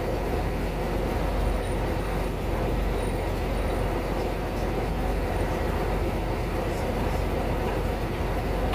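A river boat's engine running steadily, an unchanging low drone.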